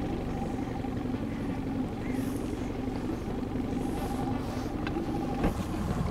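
Boat's outboard motor idling steadily while it holds the boat against the river current, with a light knock near the end.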